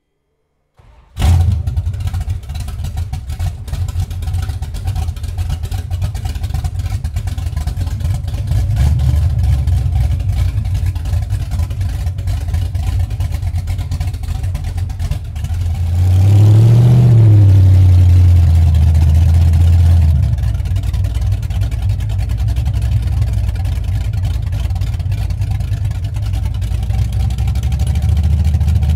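Straight-piped Ford 460 big-block V8 catches suddenly about a second in and runs with a loud, deep exhaust, heard from inside the cab. About two-thirds through it is revved, the pitch rising and falling, and held louder for a few seconds before settling back as the truck drives on.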